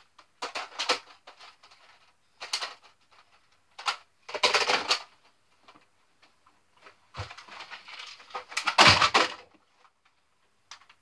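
Plastic Nerf blaster parts and magazines being rummaged through and handled: several bursts of clattering and clicks with short pauses between them, the loudest one near the end.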